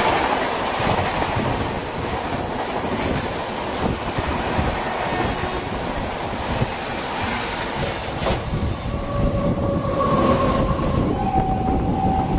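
Indian Railways express of LHB coaches passing at speed, its wheels clattering over the rail joints with a steady rush of rain and wind noise, then a freight train of covered BCNA wagons rolling past close by. From about nine seconds in an electric locomotive's horn sounds in long steady calls, first one tone and then a different one.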